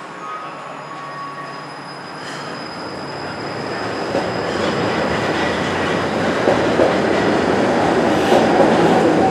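De Lijn low-floor tram pulling out of an underground station and passing close by. Its rolling rumble and wheel noise grow steadily louder as it gathers speed, with a faint high wheel squeal over it.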